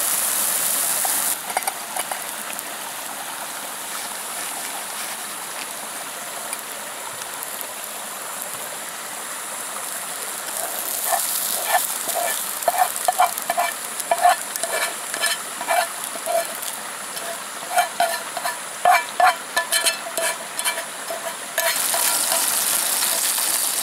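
Onions sizzling as they fry in a pot on a canister camp stove, under a steady hiss. From about 11 s in, a spoon scrapes and taps against the pot in quick, uneven strokes as the onions are scooped out into a metal frying pan.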